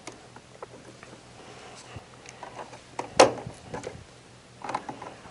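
Small clicks and scrapes of needle-nose pliers and the metal-framed humidity control as it is pried out of the dehumidifier's sheet-metal control housing, with one sharp click about three seconds in.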